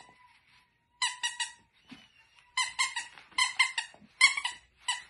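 A rubber squeaky dog toy squeezed by hand in quick runs of two to four squeaks, about five runs in all, each squeak on one high, unchanging pitch.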